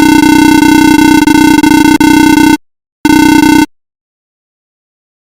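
Loud, harsh electronic buzzer tone, held steady for about two and a half seconds, then cut off and sounded again briefly about three seconds in.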